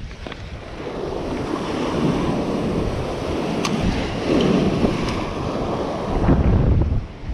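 Sea waves surging and washing over shore rocks, swelling and easing a few times, with wind buffeting the microphone. A couple of sharp ticks sound in the middle.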